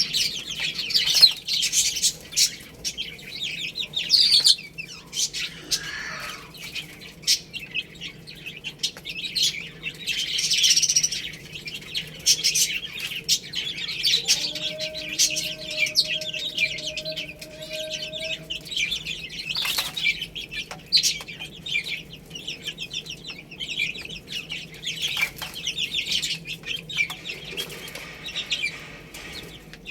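A brood of baby chicks chirping continuously, many rapid high peeps overlapping. About halfway through, a steady lower tone is held for about four seconds.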